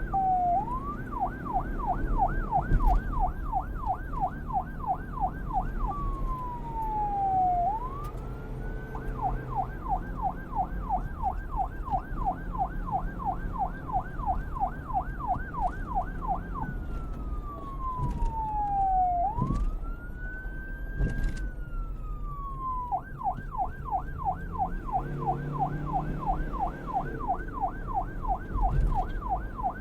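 Electronic police car siren alternating between a fast yelp, about four sweeps a second, and slower wail sweeps that fall and then rise again. A low traffic-like rumble runs underneath.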